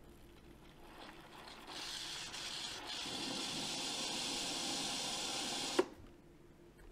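Philips LatteGo espresso machine's steam hissing steadily through the milk frother, building up over the first two seconds, then stopping with one sharp knock as the valve closes.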